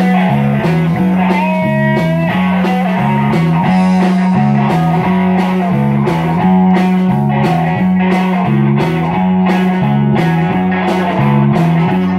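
Live band playing a blues-rock instrumental passage: guitar over a repeating low bass riff and steady drum strokes.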